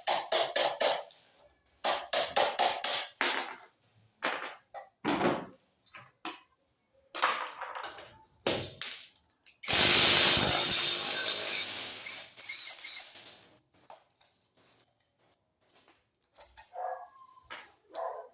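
Mechanic's tools at work on a car: a run of short, broken bursts of tool noise, then a power tool running loudly for about four seconds a little past halfway.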